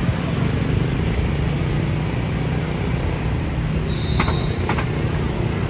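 Street traffic: motor scooter engines running as they pass close by, over a steady traffic rumble. About four seconds in, a brief high steady tone sounds, followed by a few sharp clicks.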